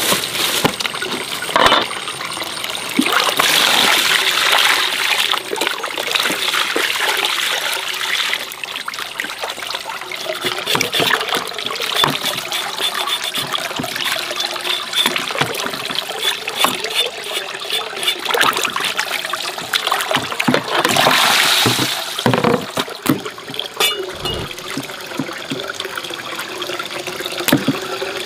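Water running and splashing, with frequent small knocks and clatter throughout.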